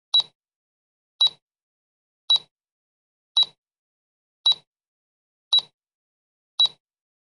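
Countdown timer tick sound effect: a short click about once a second, seven in all, with silence between.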